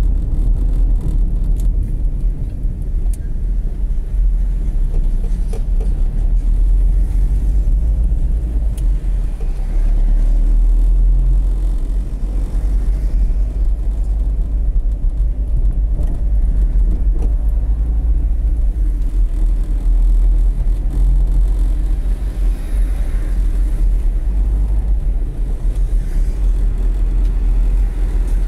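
A car driving along city roads, with a steady low rumble of engine and tyre noise.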